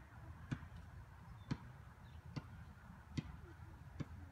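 Five faint, sharp knocks about a second apart over a low background rumble.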